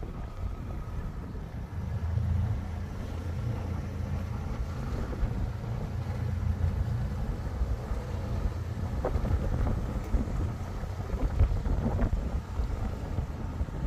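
Motorboat engine running steadily underway, a low rumble, with wind buffeting the microphone.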